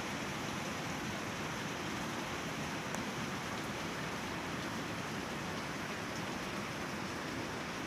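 Steady rush of a fast-flowing river current, an even wash of water noise.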